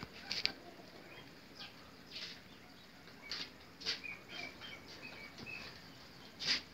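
Birds in an aviary: several brief, sharp rustling sounds, and a run of short high chirps about four to five seconds in.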